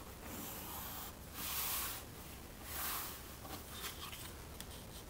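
Pencil and wooden ruler working on a sketchpad while grid lines are drawn: three scratchy strokes within the first three seconds, each up to about a second long, the middle one loudest, then a few light taps as the ruler is shifted across the paper.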